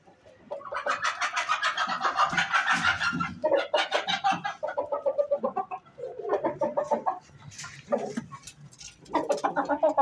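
Aseel chickens clucking: a long run of rapid clucks lasting a couple of seconds, then several shorter bursts of clucks with pauses between them.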